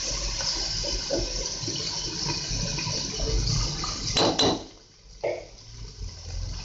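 Garlic-ginger paste and garlic powder sizzling in hot oil in a nonstick pan, a spatula stirring through it. A couple of louder scrapes of the spatula on the pan about four seconds in, after which the sizzle briefly dies down.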